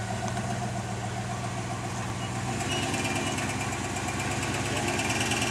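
Toyota Hilux rock crawler's engine running at low revs as the truck crawls over rock, the note getting a little louder about two and a half seconds in as a thin high whine joins it.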